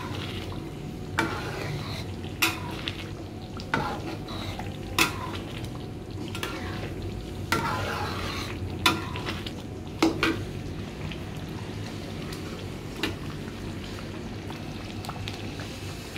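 Metal spatula stirring thick sambal chili paste in a steel wok, knocking and scraping against the pan about once a second, over the steady sizzle of the simmering sambal. The knocks thin out after about ten seconds, leaving only the sizzle.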